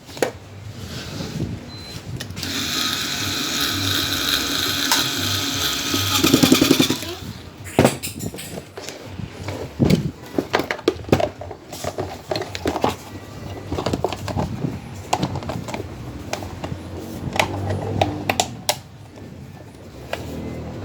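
A small power tool's motor whines steadily for about four seconds, dropping to a lower, louder buzz just before it stops, followed by scattered clicks and knocks of parts and tools being handled.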